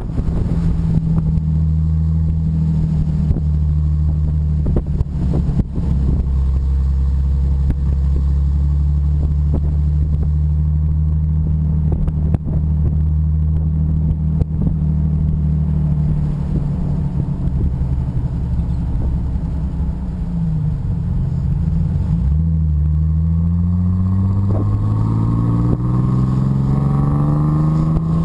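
TVR 3000S's Ford 3.0-litre V6 engine running steadily at cruise, heard from inside the open cockpit. About twenty seconds in the engine note dips briefly, then climbs steadily as the car accelerates.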